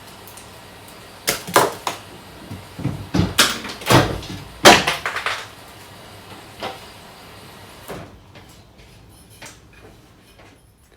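Knocks and clatters of containers and fridge parts being handled while a fridge is cleared out: a cluster in the first half, the loudest about five seconds in, then a few faint knocks.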